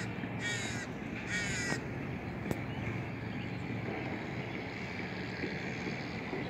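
A crow cawing three times in quick succession, harsh calls about a second apart, over a steady low outdoor hum. A single sharp click comes about two and a half seconds in.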